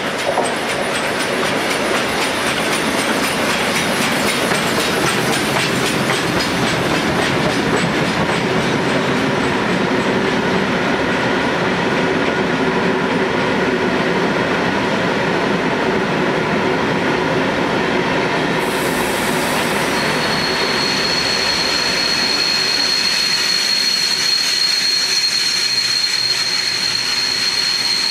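Passenger coaches of a steam-hauled special train rolling slowly past, a steady rumble of wheels on the rails. About two-thirds of the way in, a steady high-pitched whine joins it and continues.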